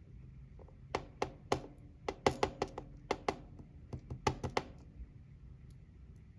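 Small sharp metal clicks and taps as the pin tumblers are taken out of a Goal S lock and set down: about a dozen clicks over some four seconds, then they stop.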